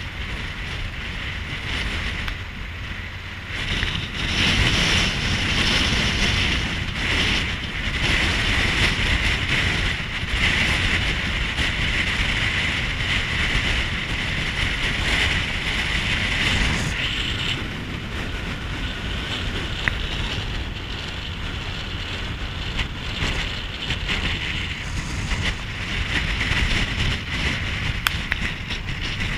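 Wind rushing over the microphone of an action camera on a moving motorcycle, with road and engine rumble beneath. The wind noise grows louder about four seconds in, eases after about seventeen seconds and rises again near the end.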